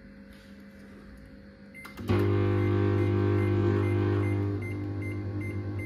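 Samsung microwave oven switched on about two seconds in: a click, then a loud, steady electrical hum of the oven running, which eases a little near the end.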